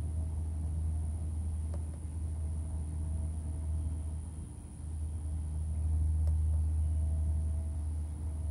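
Steady low background rumble that eases briefly about halfway through and then swells again, with a faint thin high-pitched whine over it.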